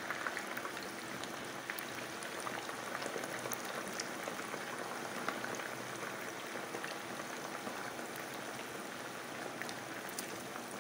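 Yam chips deep-frying in a pot of hot oil: a steady sizzling and bubbling, dotted with small crackles and pops.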